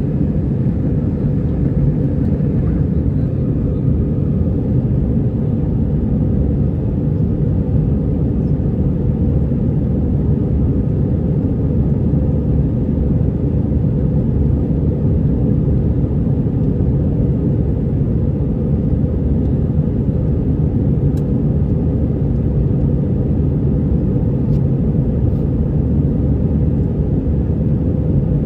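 Steady low rumble of an Airbus A320 heard from inside the passenger cabin: engine and airflow noise running evenly, with no change in pitch or level.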